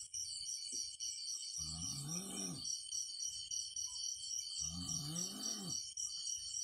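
Looping background music: a fast, steady high-pitched pulsing rhythm, with a low tone that rises and then falls for about a second, twice, about three seconds apart.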